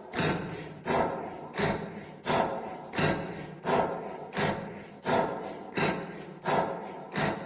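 A steady series of heavy thumps, about three every two seconds, each one dying away before the next.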